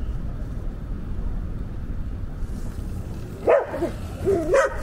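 A dog barking twice near the end, short bending calls over a steady low rumble.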